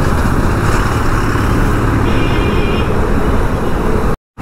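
Motorcycle running at road speed, its steady engine hum mixed with wind rush on the action-camera microphone. A faint high tone sounds briefly near the middle, and the sound cuts out completely for a moment just before the end.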